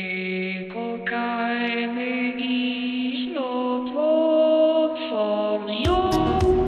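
Music: sustained, chant-like vocal or synth chords held over a steady low drone, the notes shifting every second or so. About six seconds in, a different song with a beat cuts in.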